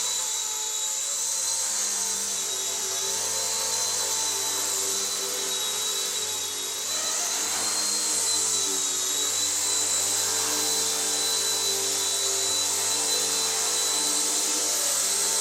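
RC ERA C138 Bell 206 micro RC helicopter in flight: the steady high-pitched whine of its electric motors and spinning rotors, with the pitch and loudness wavering slightly as the throttle is worked and dipping briefly about halfway through.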